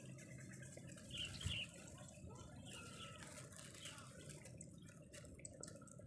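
Faint outdoor ambience: wind rumbling steadily on the microphone, with a few short high chirps about a second in and light scattered ticks.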